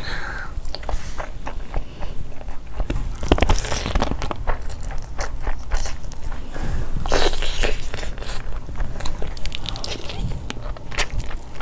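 Close-miked eating sounds from a person's mouth: chewing and biting through mouthfuls of boiled egg, fried rice and spiced chicken, with many small irregular clicks and smacks.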